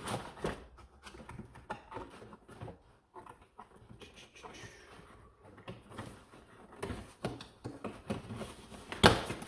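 Cardboard and plastic packaging being handled as a toy blaster is pulled from its box: scattered rustles and knocks, with one sharp knock near the end.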